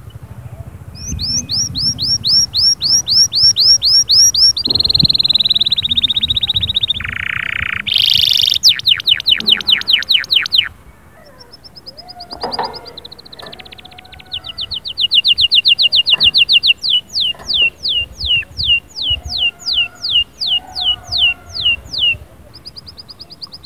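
Canary singing a long song of rapid repeated phrases: runs of quick falling notes, a fast high trill, and a brief lower rolling trill. After a short lull about halfway through, it goes on with more high trills and slower falling notes.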